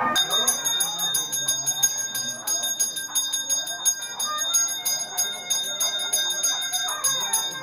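Brass hand-held pooja bell rung rapidly and without a break, its clapper striking many times a second over a steady high ring. It marks the waving of the aarti lamp in Hindu worship.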